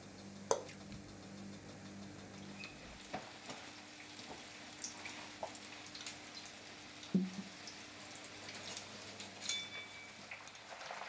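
Carp fillet pieces frying in a pan of hot oil: faint sizzling with scattered small crackles over a low steady hum. A single knock about seven seconds in.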